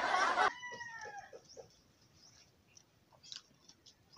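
A rooster crowing; the call breaks off about half a second in and trails away in a falling, drawn-out note, followed by a few soft clucks. Faint scattered clicks follow.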